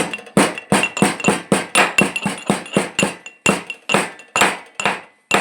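A metal pestle pounding in a metal mortar, striking about twice a second in an even rhythm, each blow a sharp clink with a short metallic ring.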